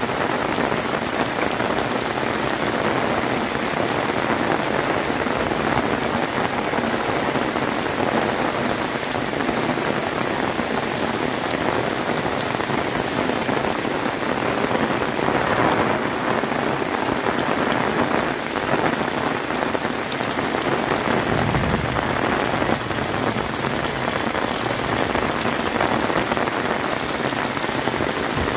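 Heavy rain pouring steadily in a dense, unbroken hiss.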